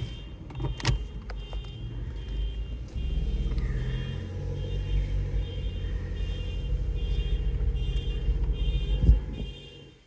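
Car engine and road noise heard from inside the cabin as the car pulls away and drives, louder from about three seconds in, with a thump near the end. A faint high beep repeats about twice a second throughout, which the driver calls somebody's alarm.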